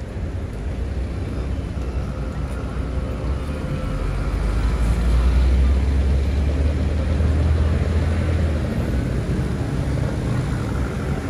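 Street traffic with a low engine rumble that swells about four seconds in and fades near the end, as a vehicle passes.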